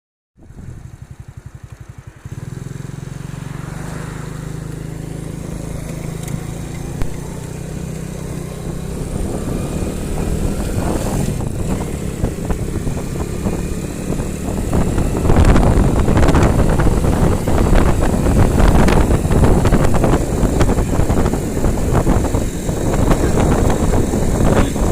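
An engine running steadily, growing louder and rougher about halfway through.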